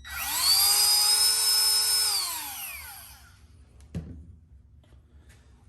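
Milwaukee M12 cordless rotary tool switched on briefly with nothing touching it: its motor spins up at once to a high, steady whine, holds for about two seconds, then winds down with falling pitch as it is released.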